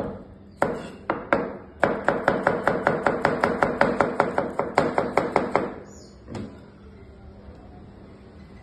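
Kitchen knife slicing a cucumber into rounds on a plastic cutting board, the blade knocking on the board with each cut. A few single cuts come first, then a fast, even run of about five chops a second for nearly four seconds, and one last knock a little later.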